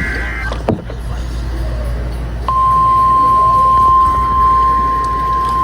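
The tail of an EAS/SAME digital header burst, a rapid two-tone warble that ends about half a second in. Then radio hum and static, and about two and a half seconds in the steady single-pitch NOAA Weather Radio warning alarm tone starts and holds, louder, signalling that a new warning follows.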